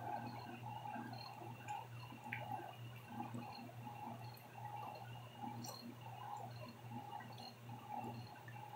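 Faint room tone: a low steady hum with scattered faint ticks.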